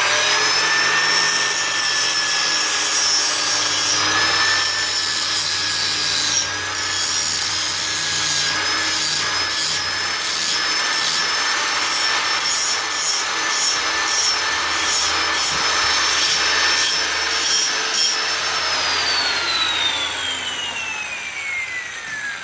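Angle grinder with a grinding wheel spinning up with a rising whine, then grinding down the saddle cut on a metal pipe end in short passes, with a steady high whine under scratchy contact noise. Near the end it is switched off and the whine falls in pitch as the wheel winds down.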